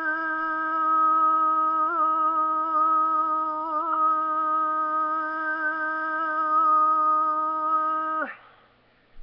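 An amateur's Tuvan throat singing: one long held note with strong ringing overtones above it, wavering briefly about two and four seconds in, then cutting off sharply about eight seconds in.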